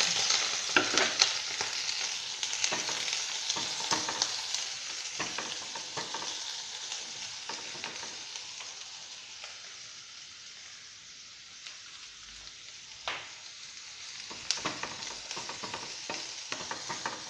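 Chopped onions sizzling in hot oil in a frying pan, loudest at first and slowly dying down, with clicks and scrapes of stirring against the pan, and a fresh run of stirring clicks near the end.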